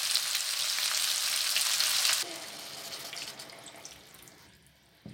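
Mutton pieces and masala sizzling in ghee in a pan as they are stirred, a loud steady sizzle that drops off suddenly about two seconds in. Water is then poured into the curry, much quieter, and fades out near the end.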